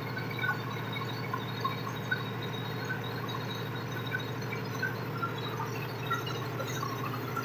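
1000 kVA Cummins diesel generator set running steadily at an even pitch, with short high chirps scattered over it.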